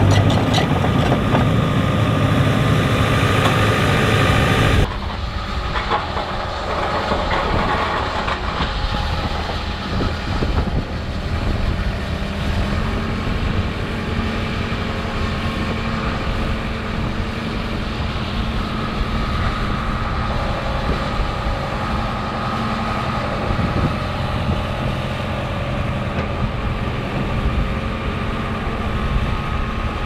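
Case crawler dozer's diesel engine running as the machine drives on its steel tracks, with a steady clatter from the tracks. Close and loud for the first five seconds or so, then suddenly farther off and quieter.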